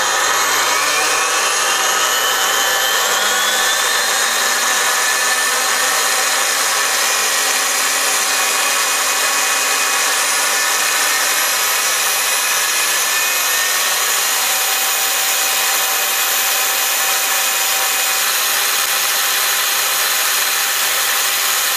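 Makita 7-1/4-inch hypoid saw running free with no load on DC power, its universal motor and hypoid gearing giving a loud whine that climbs in pitch over the first few seconds and then holds steady at full speed. The speed matches its rated no-load speed.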